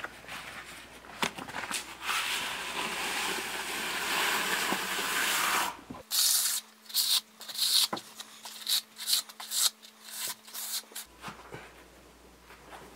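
Hand trowel scraping and spreading wet concrete in a countertop form: a long continuous rasping stretch for about six seconds, then a run of short, quick strokes, fading to quieter rubbing near the end.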